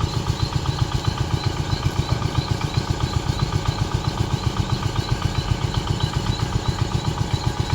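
Small boat engine running steadily with an even, rapid throb.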